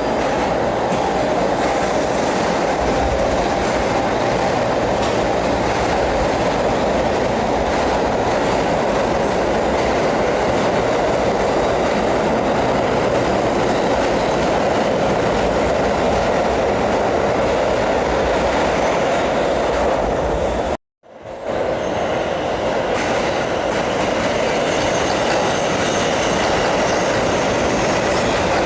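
New York City subway train running through a station: a steady loud rumble and clatter of wheels on the rails. A faint high wheel squeal comes in near the end, and the sound drops out suddenly for about half a second about two-thirds of the way through.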